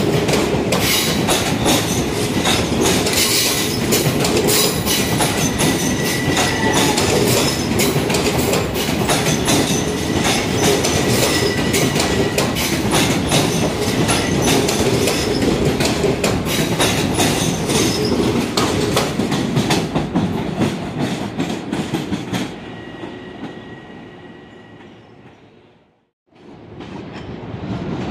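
LIRR electric multiple-unit train rolling along the platform, its wheels clicking rapidly over rail joints and switches with a faint steady squeal. The sound fades away over the last few seconds, breaks off near the end, and another train's sound rises in.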